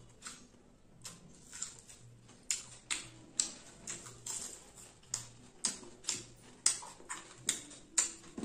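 Close-miked chewing with wet mouth smacks, about two a second, as a mouthful of rice and fried fish is eaten by hand.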